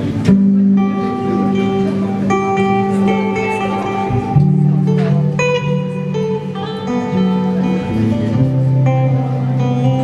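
Acoustic guitar played live: an instrumental passage of ringing chords, a new chord struck every second or two.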